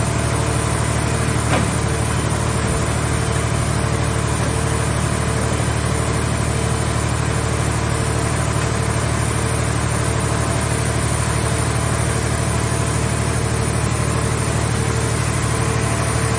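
The engine-driven hydraulic power unit of a portable scrap car baler running steadily, a low even hum with a faint tone pulsing about once a second and a single light click about a second and a half in.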